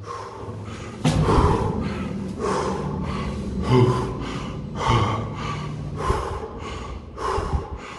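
Heavy, rapid breathing: a man gasping for air, about one breath a second, out of breath from climbing some forty flights of stairs.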